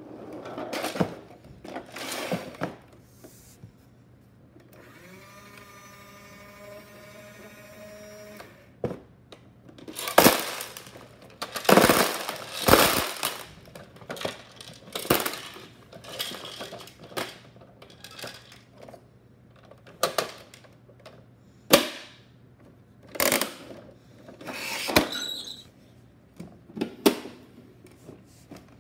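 Small plastic toy trash clattering and rattling as it is tipped out of Bruder toy garbage trucks into a clear plastic tub, in irregular bursts, heaviest a little before halfway through. About five seconds in there is a steady humming tone with a slight rise that lasts about three seconds.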